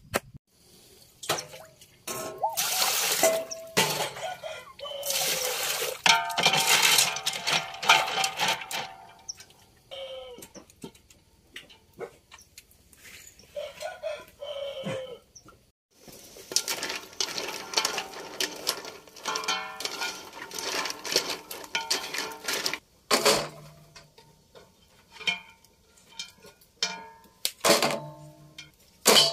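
Water splashing and bamboo sticks clattering and clinking against a metal pot and basin, in several separate stretches.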